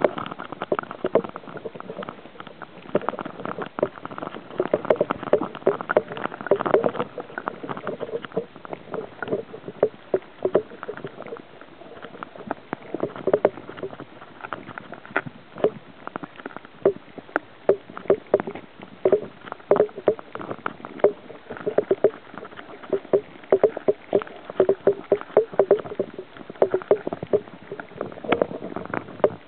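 Water sloshing and knocking against an underwater camera housing, muffled as heard through the housing. Irregular knocks come several a second throughout.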